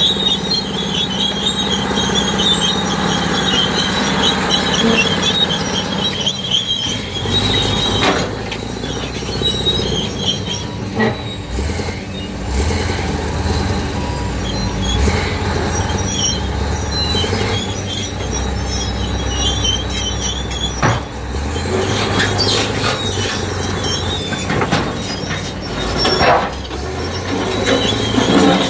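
Fiat-Hitachi FD30C crawler bulldozer and a tracked excavator working under load against a huge boulder, their diesel engines running with a high metallic squealing, strongest in the first few seconds. Several sharp knocks come through as the blade and bucket push the rock.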